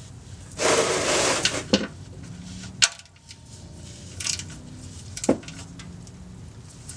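Tools and parts being handled during an oil change: a scraping rustle about a second in, then a few separate sharp clicks and knocks.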